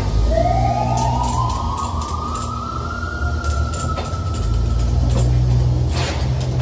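A steady low engine rumble with scattered metal clinks, like load chains being handled. Over it a whine rises for about three seconds, then holds and fades.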